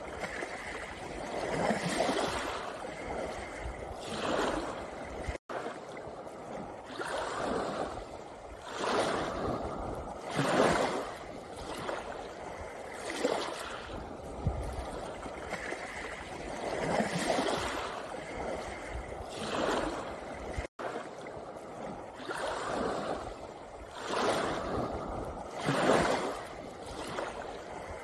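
Small sea waves washing in on a pebble beach, the surf swelling and falling back every two to three seconds. The sound cuts out for a split second twice.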